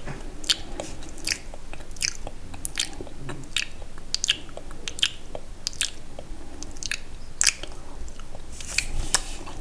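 Close-miked sticky, wet mouth sounds: sharp, irregular smacks and clicks of lips and tongue, about one or two a second.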